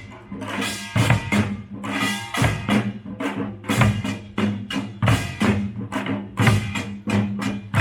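Pungmul (nongak) troupe of Korean folk percussion playing a driving, even rhythm: about two to three strong strokes a second, with deep drum hits under the ringing clang of metal gongs.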